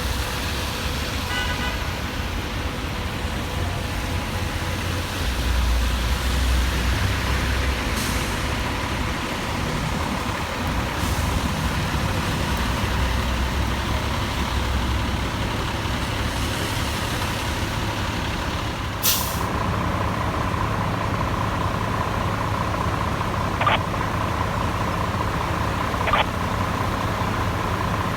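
Heavy fire apparatus running steadily, a low diesel rumble with a faint steady whine. About nineteen seconds in comes one short, sharp air-brake hiss.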